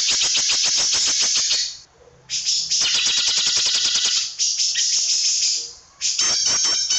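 Green leafbird (cucak ijo) singing in fast rattling runs of about ten short notes a second, the rapid 'tembakan' phrases. The runs break off briefly about two and six seconds in.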